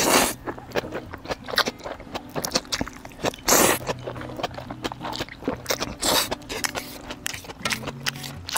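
Someone eating jjajang ramyeon noodles, slurping and chewing. Three loud slurps come at the start, about three and a half seconds in and about six seconds in, with chewing and small clicks in between.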